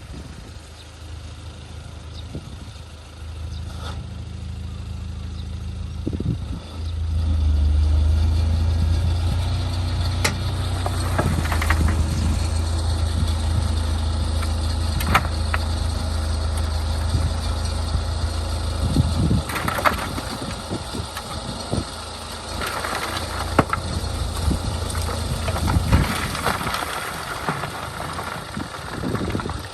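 A heavy vehicle's engine running, getting louder about seven seconds in and then holding steady, with occasional sharp knocks.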